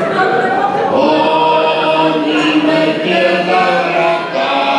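Unaccompanied male chanting in the manner of a church funeral chant, a parody requiem: long held notes stepping up and down in pitch, without instruments.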